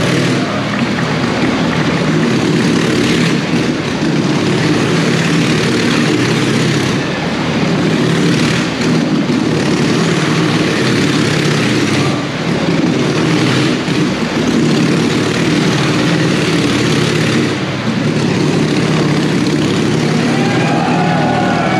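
Motorcycle engine running hard as the bike circles the vertical wooden wall of death. The sound swells and dips every few seconds as the bike laps the drum.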